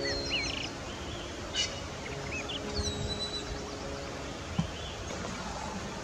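Birds chirping in short, high, rising and falling calls with a brief trill, over soft held music tones. A single short thump about four and a half seconds in.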